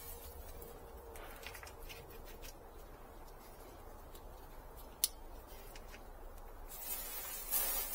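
Faint rustling and crackling of a plastic bag and cedar hardwood mulch chips being handled and spread by hand, with one sharp click about five seconds in.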